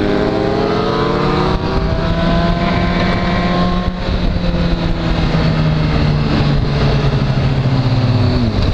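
Honda CBR sport motorcycle's engine accelerating, its pitch climbing through the first few seconds, then holding a high, steady note under throttle before dropping suddenly near the end as the throttle closes.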